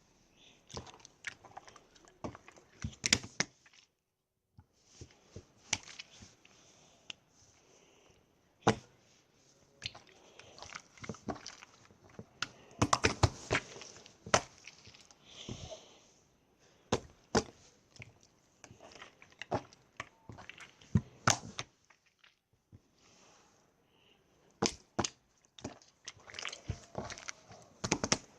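Clear slime being squished and poked by hand, giving irregular sharp clicks and pops, in dense clusters with short pauses.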